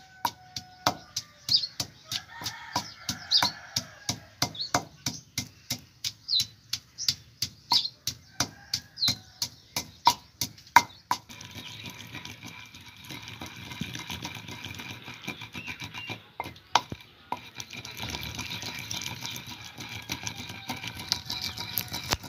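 Wooden pestle pounding wet coriander and green chilli paste in a heavy stone mortar, with even strikes about twice a second. About eleven seconds in, the strikes give way to a steadier rough scraping as the pestle is worked round against the stone.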